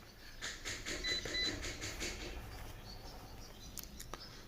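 Digital multimeter giving two short beeps about a second in, a quarter of a second apart, among light clicks and rustles of the probes being placed on a graphics card's power rails to check for a short circuit.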